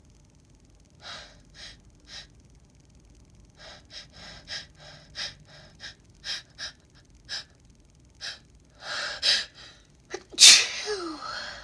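A woman's sneeze building: about a dozen short, catching breaths in, then one loud sneeze near the end.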